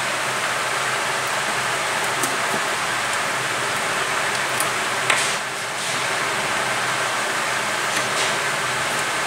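Steady rushing noise of a fan blowing air, with a few light clicks, one a little louder about five seconds in.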